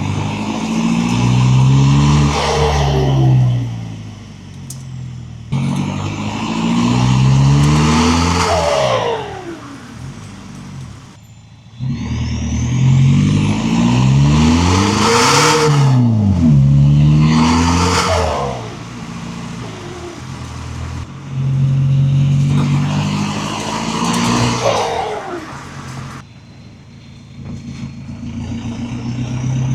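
Volkswagen 1.9 TDI four-cylinder turbodiesel revved about four times, with a steady idle in between. Each rev climbs and falls back, and a whistle falls in pitch as each rev dies away.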